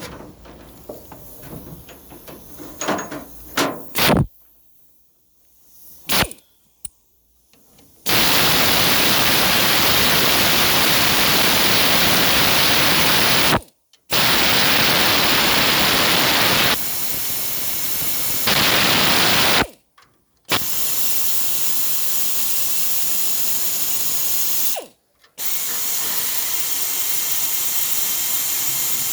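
Air tool running in long, steady, hissing bursts that stop and restart about three times, loosening bolts on a Turbo 400 automatic transmission. Before it, a few clicks and knocks of tools on metal.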